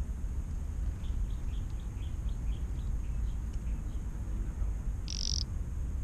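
A small bird calling: a quick run of short high chirps, then one louder, harsher call about five seconds in, over a low steady rumble.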